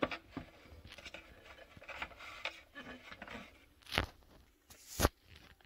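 Faint scraping and rubbing as a SodaStream CO2 cylinder is twisted tight into the soda maker's screw-in holder, with two sharp knocks, about four and five seconds in.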